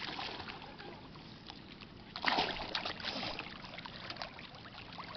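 Pool water splashing and lapping as children move about in a swimming pool, with one louder splash about two seconds in.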